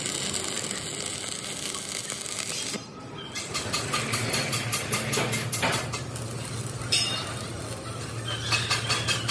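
Stick (arc) welding on the steel parts of a truck bumper: the arc gives a steady sizzling crackle. After a short dip about three seconds in, it returns as fast, regular popping over a low steady hum.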